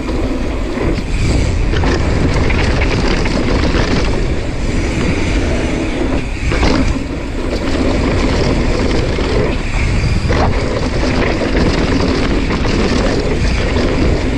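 Wind rushing over an action-camera microphone while a mountain bike rolls over a dirt-jump line, tyres running on dirt, with a few brief knocks about halfway through and again later.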